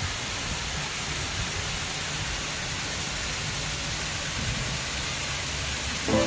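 Steady rushing of a man-made waterfall, water pouring down a high stone wall, heard as an even hiss without breaks.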